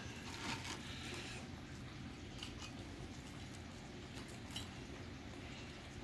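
Faint handling of crisp-fried grits cakes on a ceramic plate: soft rustles and a few light taps as the pieces are set down and arranged by hand, over a steady low hum.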